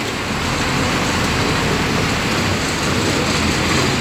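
Seawater surging into a flooded street: a steady rushing wash of water.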